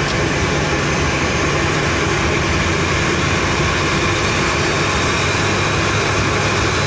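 Steady noise of Boeing 737 jet engines heard on the flight deck during engine start, with a low hum underneath: one engine is running at idle while the other is still spooling up in its start.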